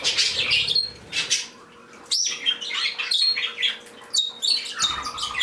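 Small pet birds, a mixed flock of parakeets and a canary, chirping and calling in many short, high notes with a few brief whistled notes among them, over a faint steady hum.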